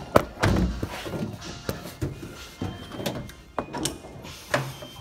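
Toyota Tundra tailgate being raised to its release angle and lifted off its hinge pivots: a sharp click near the start, then a string of irregular clunks and knocks.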